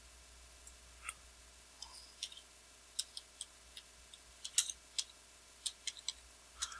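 Faint, irregular light clicks and taps, a dozen or more scattered unevenly, the sharpest about four and a half seconds in.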